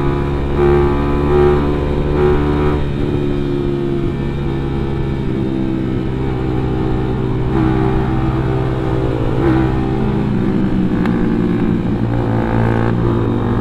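Sport motorcycle engine running at road speed, heard from the rider's seat, holding a mostly steady note.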